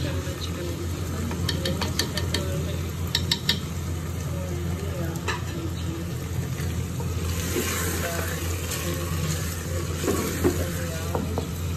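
Daal mash frying and sizzling in a clay pot as white butter is dropped in and stirred with a wooden spoon, the spoon scraping against the clay. A few sharp clicks of the spoon on the pot come about two to three seconds in, and the sizzle grows louder from about seven seconds in.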